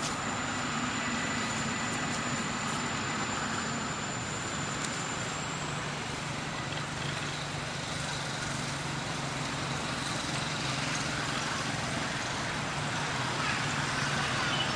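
Steady outdoor background noise with a low engine-like hum, like distant road traffic, and a thin high steady tone that stops about five seconds in.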